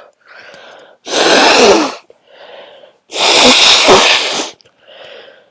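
A person with a cold sneezing hard twice in quick succession: each loud, voiced sneeze lasts about a second and is preceded by a short, quieter gasping breath in. A third breath is drawn near the end as another sneeze builds.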